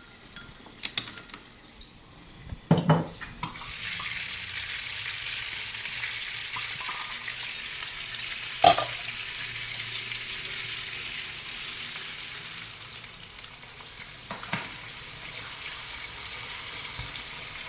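Scrambled eggs frying in a pan, a steady sizzle that starts about three and a half seconds in, after a couple of knocks. A loud sharp knock comes near the middle and a smaller one later, as the eggs are stirred.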